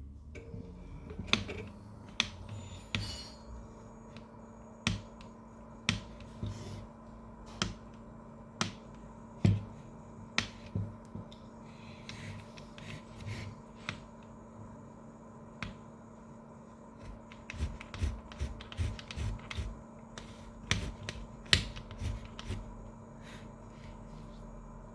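Scattered sharp clicks and knocks of printer parts being handled and fitted back into place during reassembly of the fuser unit, over a steady hum.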